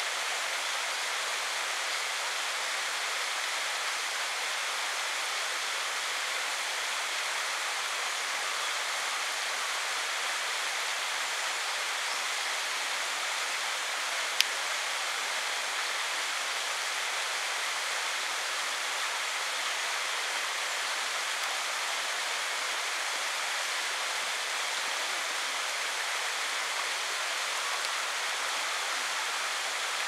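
Steady rush of a waterfall pouring into a pool, an even unbroken hiss of falling water, with one sharp click about halfway through.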